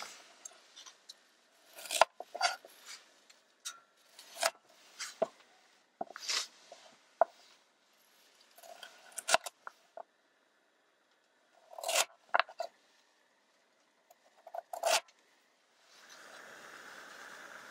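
Food preparation: irregular snips, scrapes and light clicks of ingredients being cut and handled, in short spurts with quiet pauses between them. A steady hiss comes in near the end.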